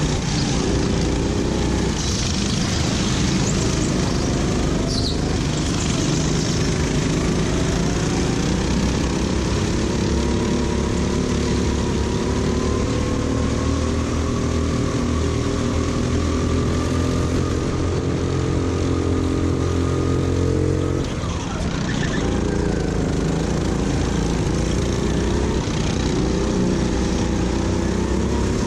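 Racing kart's engine heard from onboard, running hard with its pitch climbing steadily over a long stretch, then falling away sharply about three-quarters of the way through before picking up again, over a steady rush of noise.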